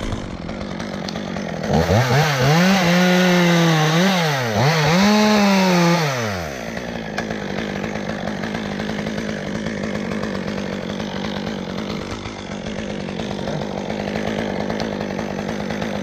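Stihl top-handle chainsaw run up to full throttle for about four seconds, its pitch dipping twice as it bogs under load while cutting a notch. It then drops back to a steady idle.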